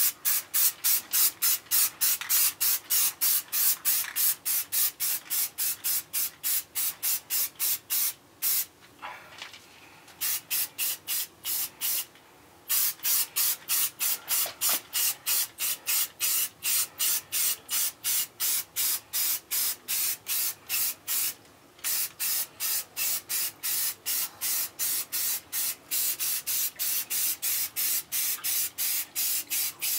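Paint being sprayed in short, quick bursts, about three a second, as primer goes onto metal mower parts. There is a pause of about a second and a half near eight seconds in and brief breaks about twelve and twenty-one seconds in.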